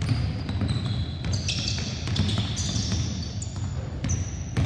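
Several basketballs being dribbled on a hardwood gym floor, with many overlapping bounces. Sneakers squeak on the floor in short high chirps through the middle.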